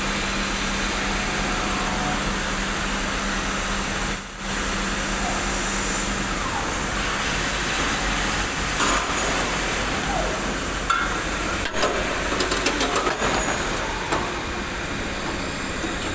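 Auto-loading CNC machine running with a steady mechanical noise and hum. A short loud burst comes about four seconds in, and a series of clicks and clatters follows near the end.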